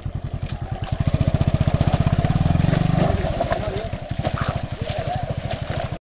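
Motorcycle engine running and being revved, growing louder about a second in and easing off after about three seconds, with the shallow stream rushing over rocks behind it.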